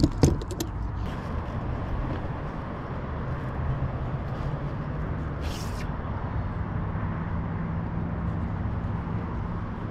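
Steady low outdoor rumble, with a faint engine-like hum in the second half. A few sharp clacks sound right at the start, and a brief hiss comes about five and a half seconds in.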